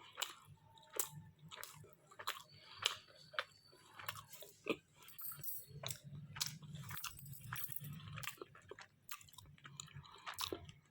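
Close-up chewing of a mouthful of chicken shawarma wrap, with many irregular wet mouth clicks and smacks.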